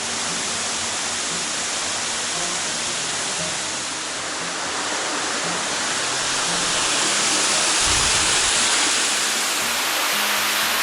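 Waterfall: water pouring in a steady, loud rush, growing a little louder about seven seconds in.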